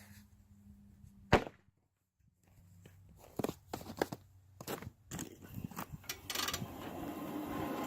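Footsteps and a series of sharp knocks and clicks, the loudest a single crack about a second in, with a steady noise rising near the end.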